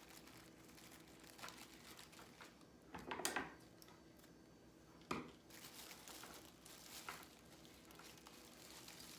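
Plastic snack bag crinkling in short, faint rustles as it is handled, four or so times, the loudest about three seconds in.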